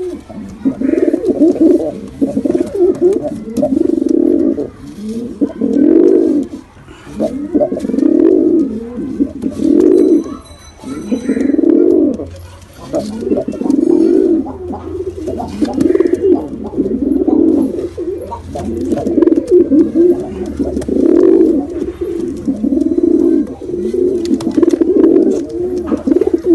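Domestic pigeons cooing: low, warbling coo phrases repeated roughly every second or two without a break.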